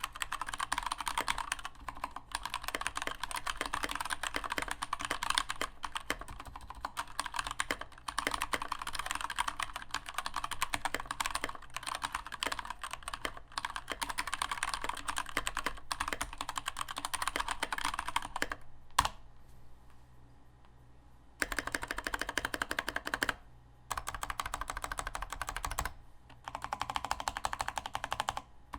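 Typing on an unmodded Keychron K2 mechanical keyboard: a fast, steady run of key clacks, with a pause of about two seconds about two-thirds of the way through and a couple of brief breaks near the end.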